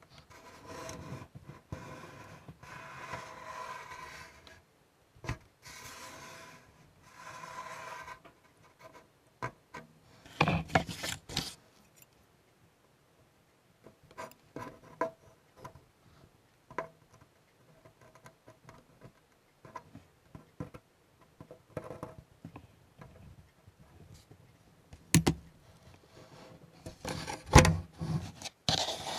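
Workbench sounds: three short stretches of steady rubbing noise in the first eight seconds, then scattered light clicks and knocks from tools and parts being handled. The loudest knocks come about ten seconds in and again near the end.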